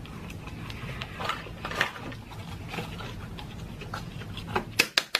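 Close-miked wet chewing and mouth smacking of someone eating french fries, over a low hum. Near the end a fast run of sharp knocking taps begins, about six a second.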